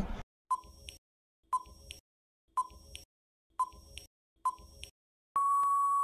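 Quiz countdown-timer sound effect: five short electronic ticks about a second apart, each followed by a fainter tick, then a single steady beep near the end marking time out.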